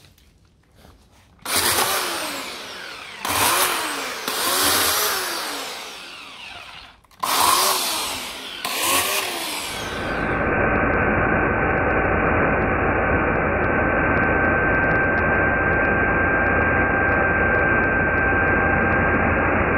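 Parkside 1400 W electric chainsaw cutting through branches in several short bursts, its motor pitch rising and falling with each one. About halfway through it gives way to a steady, muffled sound carrying one held high tone.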